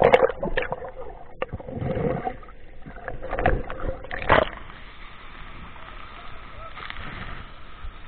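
Splashing and gurgling as the camera is dunked under water in a waterfall plunge pool, with several loud sudden splashes in the first half, then a steady muffled rush of water heard through the submerged camera.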